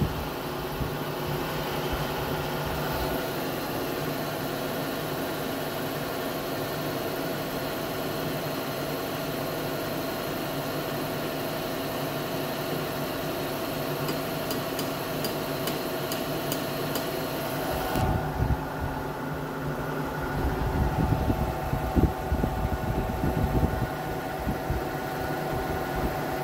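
Vertical milling machine running steadily with its spindle motor humming while an end mill cuts an aluminium part. About two-thirds of the way through, a high hiss stops suddenly, and irregular low knocks follow near the end.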